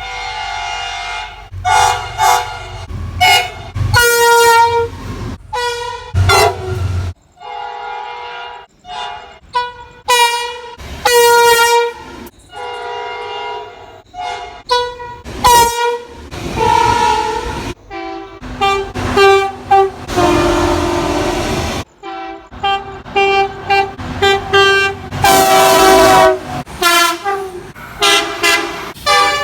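Train air horns sounding chords of several notes at once, in a string of short and long blasts. Clips of different trains follow one another with abrupt cuts, and a low rumble runs under the first several seconds.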